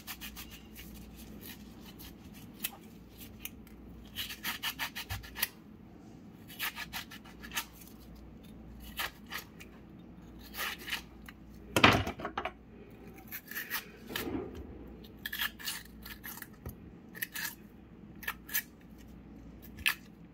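A metal vegetable corer scraping out the inside of a peeled potato in bursts of quick strokes, with pauses between them. One louder sharp knock comes about halfway through.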